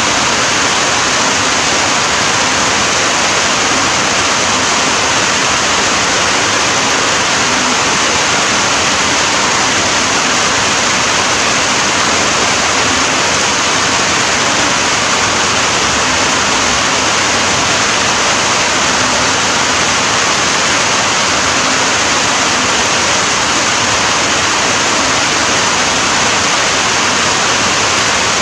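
Rain falling steadily and heavily: a dense, even hiss that does not change.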